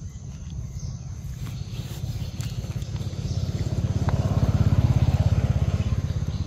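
A vehicle engine passing close by: a low, rapid pulse that swells to its loudest about five seconds in, then fades.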